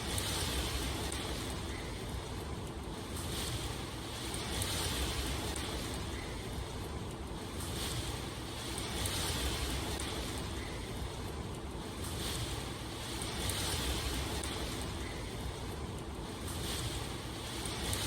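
Steady rushing water ambience that swells and eases every three to four seconds.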